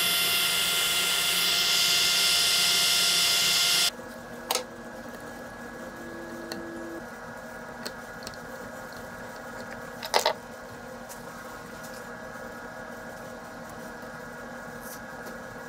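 A small motor-driven machine running steadily, then cutting off abruptly about four seconds in. After that comes a faint steady hum with scattered light clicks and a sharper knock near the middle.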